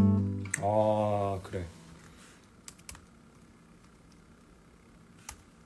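Steel-string acoustic guitar sounded at the start, ringing for about a second and a half before it stops. A few faint light clicks follow, like fingers tapping.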